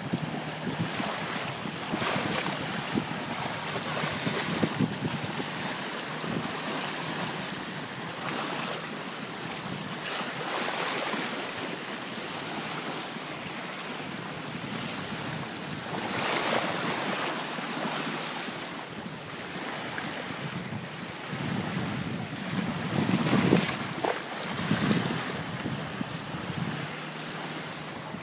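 Water rushing along the bow of a sailboat under way, with wind buffeting the microphone; the rush swells and eases every few seconds.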